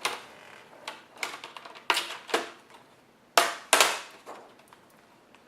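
Plastic clips of a laptop's front screen bezel snapping loose as it is pried off by hand: a series of sharp, irregular clicks, about six loud ones, that stop near the end.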